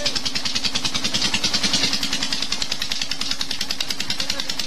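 Petter stationary diesel engine running steadily on 100% jatropha oil instead of diesel fuel, with a fast, even firing beat.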